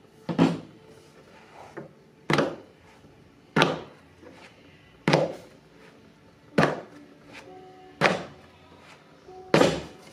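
A slab of clay slapped down flat onto a canvas-covered board, seven times at an even pace of about one every one and a half seconds. This is slab throwing, which stretches and thins the clay into a sheet.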